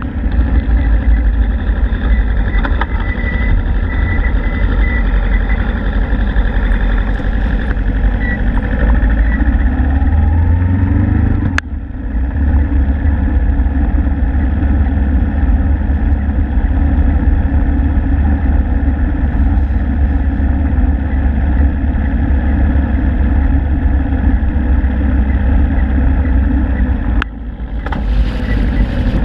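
Suzuki Inazuma GW250 motorcycle's parallel-twin engine running steadily while riding at low speed, rising in pitch for a moment about ten seconds in. The sound breaks off abruptly and resumes about twelve seconds in and again about two seconds before the end.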